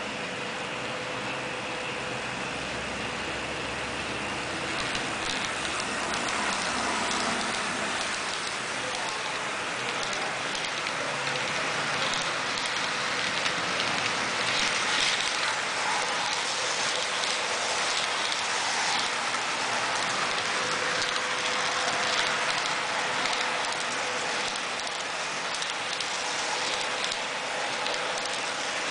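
HO scale model trains running on the layout: a steady rolling noise of wheels on track with a faint steady hum, growing louder about five seconds in as the passenger train runs past close by.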